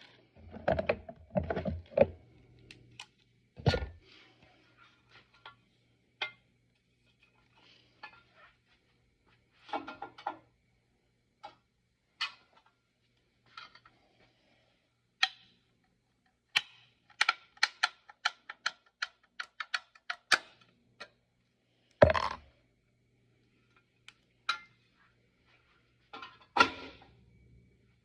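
Irregular knocks, clicks and light metallic clinks of hand tools and door hardware being handled, with a quick run of clicks just past the middle and a sharper knock a little later.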